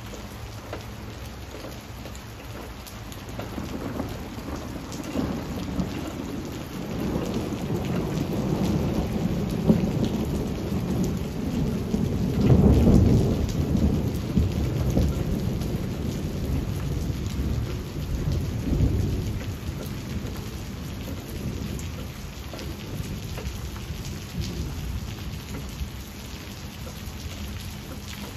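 Steady rain falling on leaves, with a long rumble of thunder that swells from a few seconds in, peaks about halfway through and slowly fades away.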